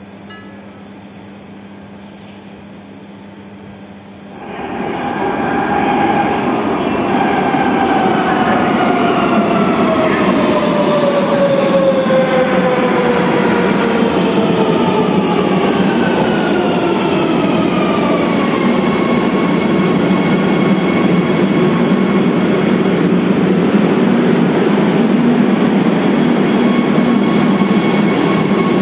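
Madrid Metro Serie 3000 electric train arriving at an underground platform. Its running noise swells in about four and a half seconds in. Its motor whine then falls in pitch as the train slows, and settles to a steady tone over a continuous rumble.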